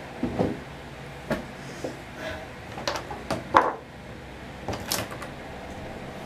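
Objects being handled and set down in a small bathroom: a run of short knocks and clatters, the loudest about three and a half seconds in.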